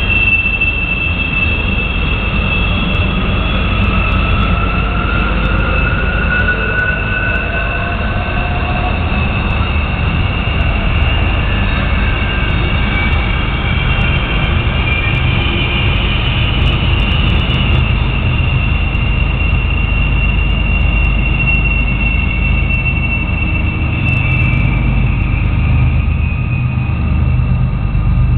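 Freight train of open hopper cars rolling past with a steady low rumble, and the wheels squealing in long, high, wavering tones that drift up and down.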